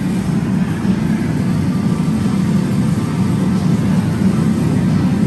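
Steady, loud low rumble of a pachislot hall's background din, with no single sound standing out.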